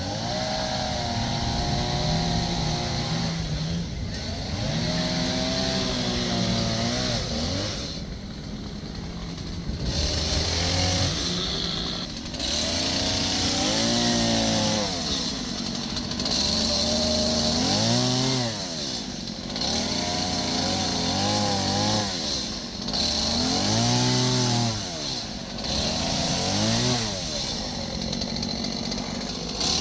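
Gas chainsaw carving a log, its engine revving up and falling back again and again as the throttle is squeezed and released.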